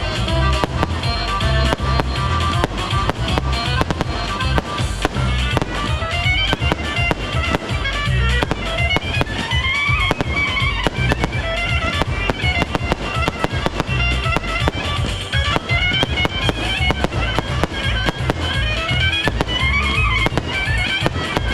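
A firework display: rapid, continuous bangs and crackles of bursting shells over loud music.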